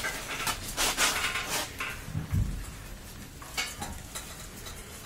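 Scattered light metallic clanks and knocks from the steel drum and frame of a homemade cement mixer, with a duller thump about two and a half seconds in.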